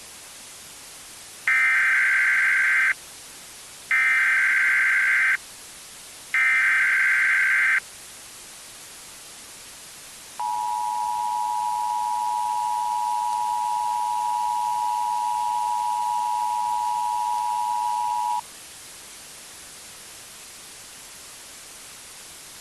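Emergency Alert System SAME header: three bursts of digital data tones, each about a second and a half long, then, about ten seconds in, the two-tone EAS attention signal held steady for about eight seconds, all over a constant hiss.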